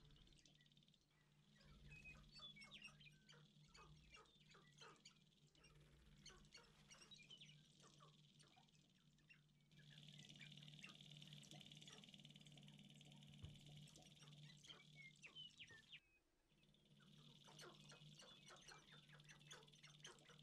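Faint calls of greater prairie chickens and sharp-tailed grouse displaying on a lek: a quick scatter of short clucks, chirps and clicks, with steady background hiss and hum.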